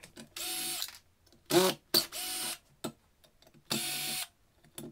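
Cordless drill-driver backing out the screws that hold a Vaillant Ecotec's plate-to-plate heat exchanger onto its hydro block. It runs in three short half-second bursts, each a steady motor whine that starts and stops sharply, with a brief louder sound between the first two.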